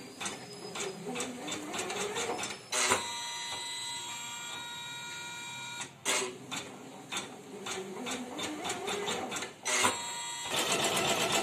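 Usha Janome Memory Craft 550E computerised embroidery machine starting up: its motors whir and tick in uneven spells, with a steady whine between them. Near the end it settles into fast, even stitching.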